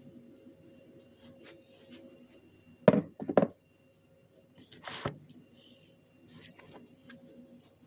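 Two loud knocks about half a second apart, then a short rustle about two seconds later.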